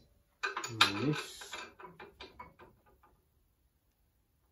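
A quick run of about a dozen light metallic clicks, roughly six a second and fading, from hand tools and the mounting bolt as a front coilover shock is fitted into its chassis mount. A man's voice says one word just before the clicks start.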